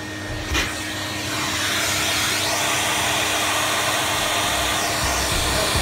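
Vacuum cleaner running steadily with a constant hum, used to draw off solder-flux fumes. It grows a little louder over the first two seconds, with a single click about half a second in.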